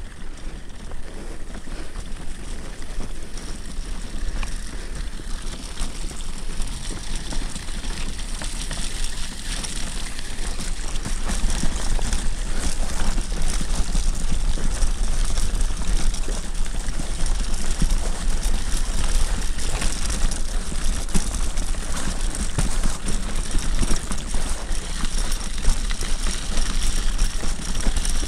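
A pram rolling along a snowy path: steady crunching, rattling noise with a low rumble, louder from about eleven seconds in.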